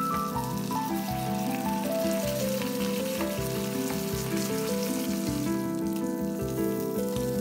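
Oil sizzling and spitting around a golden pompano pan-frying in a nonstick frying pan, the sizzle thinning in the last couple of seconds. Background music with a stepping melody and a steady beat plays over it.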